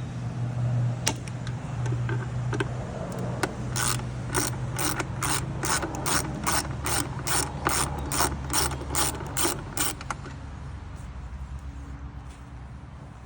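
Hand ratchet tightening an Allen-head bolt through a hex-bit socket: a few scattered clicks, then a run of even ratchet clicks, about two or three a second, for some six seconds. A steady low hum runs underneath.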